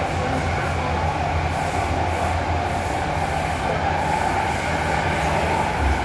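Steady running noise inside the carriage of an MTR M-Train electric multiple unit under way: an even rumble with a hiss of wheels on rail.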